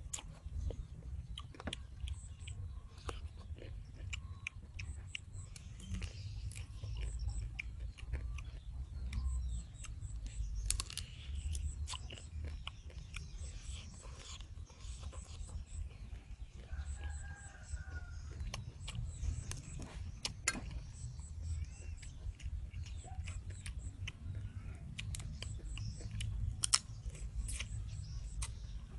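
Eating blue crab: chewing, with many small clicks and crunches of crab shell being bitten and picked apart over a low rumble. A rooster crows once in the background a little past halfway.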